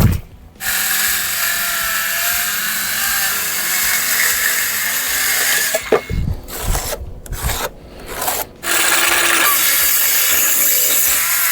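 A power tool working through wood in two long runs, about five seconds and then about four seconds, with a few short knocks in the gap between them.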